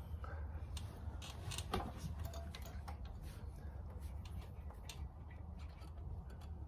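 Irregular small clicks and taps of brake pads and caliper parts being handled and fitted by hand into a motorcycle's rear brake caliper, with one louder click about two seconds in. A low steady hum runs underneath.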